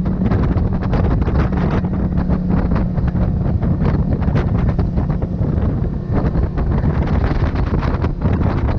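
Boat running across open water, with strong wind buffeting the microphone over the steady drone of its outboard motor.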